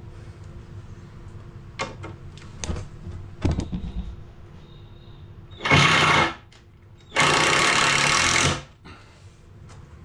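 A cordless power driver runs in two bursts, driving screws into timber; the second burst is longer. A few light knocks of timber being handled come before them.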